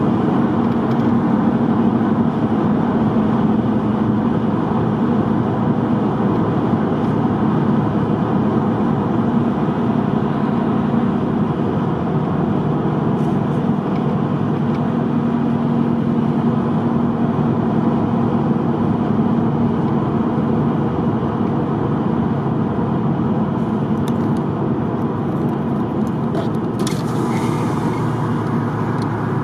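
Steady road and engine noise of a car driving on a highway, with a constant low hum. A short hiss is heard near the end.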